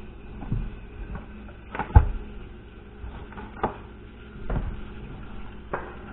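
Kitchen handling noises: a scattering of about five knocks and thumps, the loudest about two seconds in.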